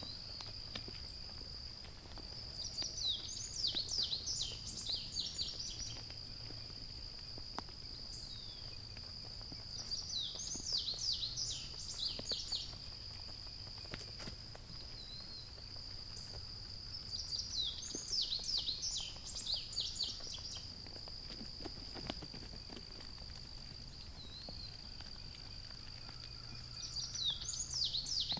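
A songbird singing a phrase of quick, falling high notes about every eight seconds, four times, over a steady high-pitched insect drone.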